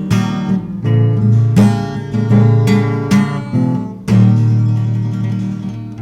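Acoustic guitar strumming the closing chords of a song's instrumental ending, with no singing. A strong chord about four seconds in is left to ring and fade.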